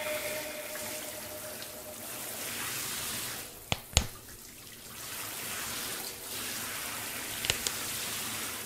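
Shower water running with a steady hiss. There are two sharp knocks about four seconds in and a couple of faint clicks near the end.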